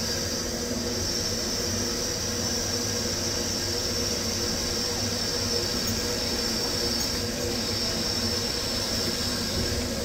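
LMS Stanier Black Five steam locomotive No. 5428 standing at the platform with steam escaping from it in a steady hiss, over a low, even rumble.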